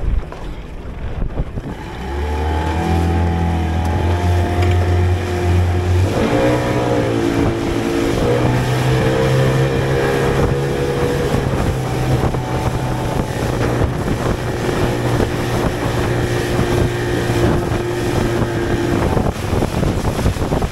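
Two-stroke Mercury outboard pushing a small aluminium boat at speed. It comes up to speed about two seconds in, climbs in pitch around six seconds in, then runs steadily, with water rushing along the hull and wind on the microphone.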